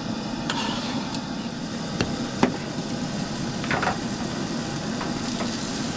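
A few sharp clicks and knocks of a cooking utensil against a pan, with a short rattle in the middle, over a steady hiss.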